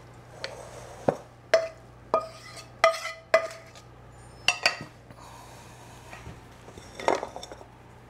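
A utensil scraping and knocking against a stainless steel frying pan as the cooked sausage mixture is tapped out into a bowl: about ten sharp clinks, each leaving the pan ringing briefly, with a pause of a couple of seconds in the middle.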